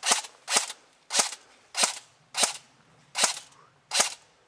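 Airsoft gun firing seven single shots in steady succession, each a sharp crack, a little under a second apart.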